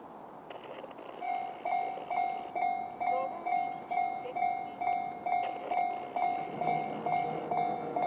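Japanese railway level-crossing alarm sounding JR's standard electronic crossing bell, a two-pitched ding repeated about twice a second, starting about a second in. It warns that a train is approaching. A lower steady hum joins about six seconds in.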